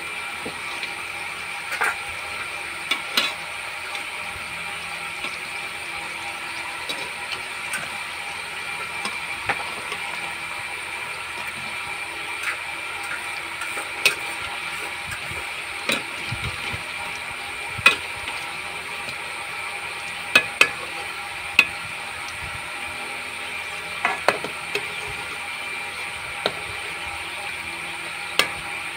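Momos frying in hot oil in a metal kadhai: a steady sizzle, with scattered sharp clicks of a metal slotted spoon knocking against the pan as the momos are turned.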